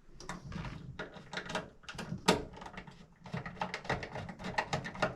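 Irregular clicks and knocks of hand tools and metal light-fixture parts being handled during the fixture's installation, with one louder knock a little past two seconds in.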